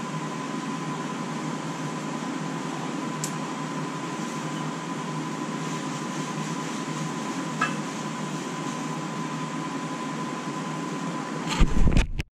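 Steady whirring hum of a shop fan, with a faint constant tone in it and a couple of faint clicks. Near the end come loud bumps and rubbing as the camera is picked up and handled.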